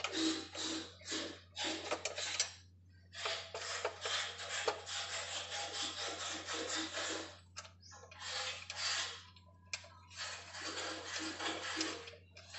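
Repeated rasping strokes of hand work rubbing on a motorcycle engine crankcase, coming in runs of quick strokes broken by short pauses.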